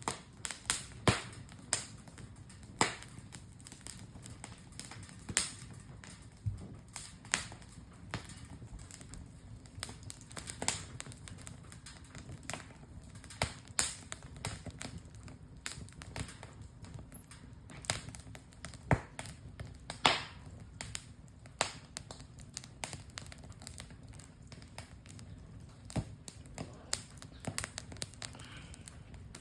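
Wood campfire crackling: irregular sharp pops and snaps, a few of them loud, over a faint low hiss of the burning.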